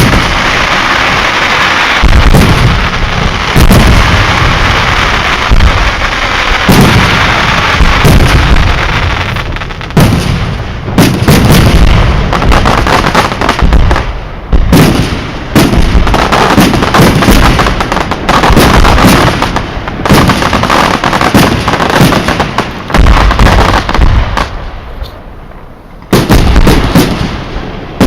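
Fireworks display: a dense, loud barrage of shell bursts and crackling, bang after bang. There is a short lull near the end, then another volley.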